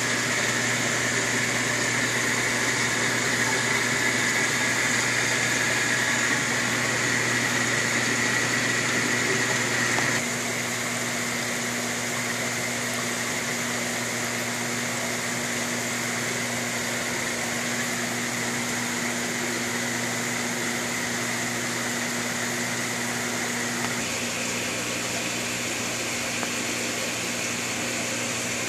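Steady hum and hiss of fish-room aquarium equipment running. The sound drops a little about ten seconds in and changes again near the end.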